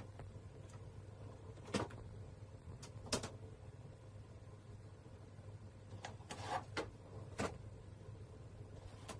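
Faint room tone with a low steady hum, broken by a scattering of light taps and knocks as a cat paws a towel about on a bathroom vanity top.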